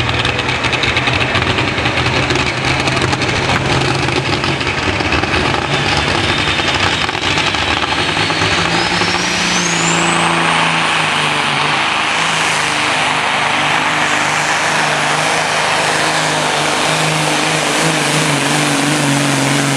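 Pulling semi truck's diesel engine running hard at high revs, loaded by the weight-transfer sled, with a high whistle rising about halfway through.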